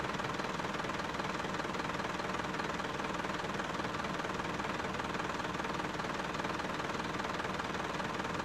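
Level-crossing warning bell ringing in a rapid, steady run of strokes while the barrier is closed, signalling that a train is coming.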